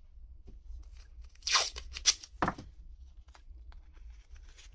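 Adhesive tape being pulled and pressed into place by hand: three short scratchy bursts of noise about one and a half to two and a half seconds in, the last with a light knock, among small handling clicks.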